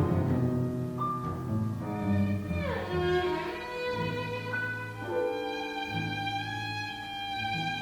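Chamber quintet playing contemporary concert music: bowed strings hold overlapping notes over low cello-range notes that change every second or so, with a downward sliding glissando about three seconds in.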